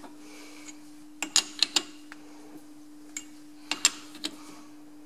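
Lathe's four-jaw chuck turned by hand, giving two quick clusters of sharp metallic clicks from the chuck and headstock gearing. A steady low hum runs underneath.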